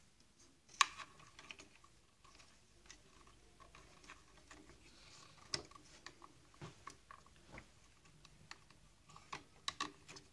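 Faint, scattered clicks and light taps of small plastic and metal parts being handled and fitted by hand inside a coffee machine, as a spring and a small coil are set in place. One sharp click about a second in, and a quick run of clicks near the end.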